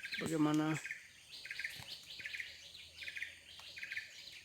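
Many birds chirping in a fruiting banyan fig tree: short trilled chirps repeating about every half second.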